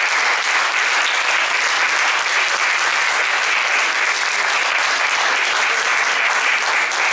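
Audience applause, sustained and steady.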